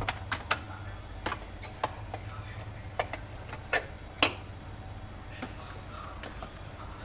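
Hard clicks and knocks, about seven of them in the first four or so seconds, from a Hurom juicer being handled and tried, over a steady low hum. The juicer will not start.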